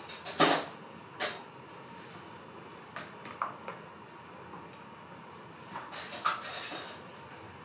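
Bar tools and ice clinking in a copper mug: a few separate clinks and knocks, then a quick run of clinking near the end.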